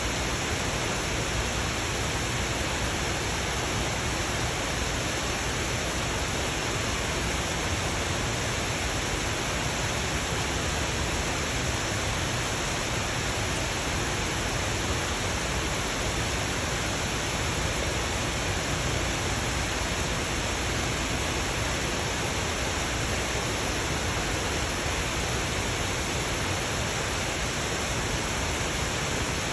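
Steady, even hiss of noise that does not change throughout, with no distinct sounds standing out.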